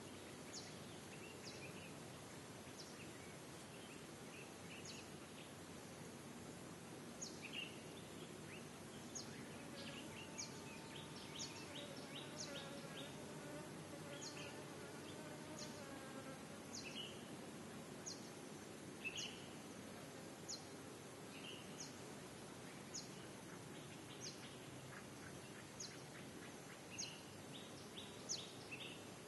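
Faint background ambience: short high chirps repeating at irregular intervals over a low steady hum, with a buzzing sound for several seconds in the middle.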